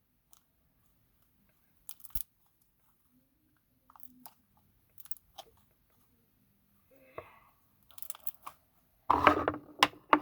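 Slime being stretched and squished by hand, giving scattered small sticky clicks and pops, with a louder burst of sound near the end.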